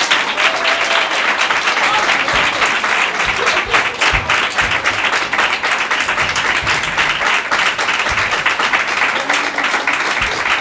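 Audience applauding, a dense, steady clapping of many hands throughout.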